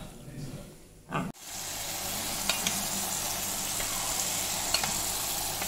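Unniyappam batter frying in hot oil in a cast-iron unniyappam pan: a steady sizzle that starts suddenly a little over a second in, with a few faint clicks.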